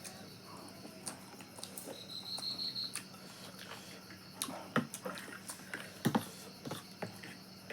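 Eating sounds: scattered sharp clicks and smacks of chewing and utensils, over a faint steady hum, with a brief high steady tone about two seconds in.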